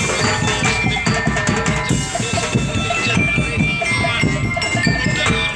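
Sinulog street-dance music with a fast, driving drum and percussion beat that runs steadily on.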